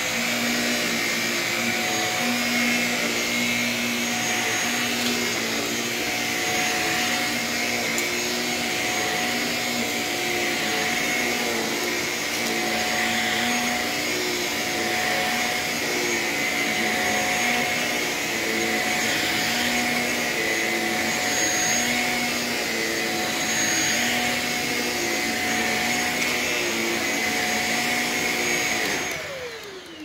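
Shark Rocket Apex stick vacuum with a self-cleaning brush-roll head running on carpet: a steady high whine over a lower hum that wavers every second or so. About a second before the end it is switched off and the motor winds down with a falling whine.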